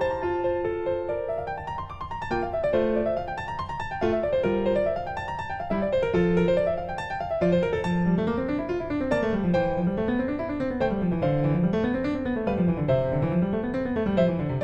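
Background piano music, with rising and falling runs of notes in the melody and the bass.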